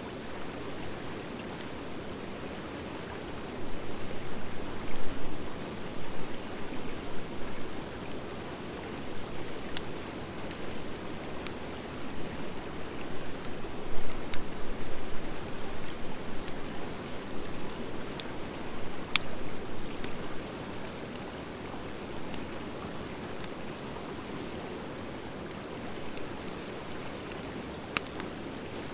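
Wood fire of driftwood and dry hardwood logs burning in a fire pit: a steady hiss of flame with stretches of denser crackling and a few sharp pops from the hardwood.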